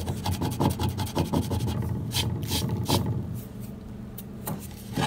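Fingertips rubbing and scraping flaking old paint on the wooden CRT base of a Philco Predicta TV. A quick run of dry scratching strokes slows to a few separate scrapes about two seconds in, then eases to light occasional scratches after about three seconds.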